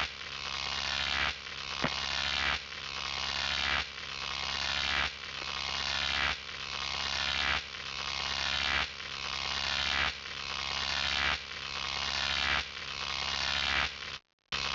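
A looped electronic buzz over a low hum, swelling and cutting off about every one and a quarter seconds in an even repeating cycle, with a brief dropout to silence near the end.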